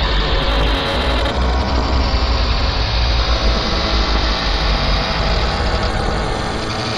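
Loud, steady, heavily distorted electronic noise with a strong low rumble, the kind of digitally processed audio laid over a logo effects edit.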